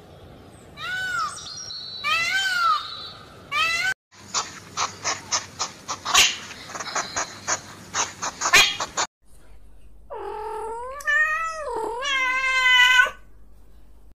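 Three separate animal-call clips in a row. First come short arching chirps, then a rapid, uneven run of sharp clicks for about five seconds, then one long, wavering, meow-like call that rises and dips in pitch.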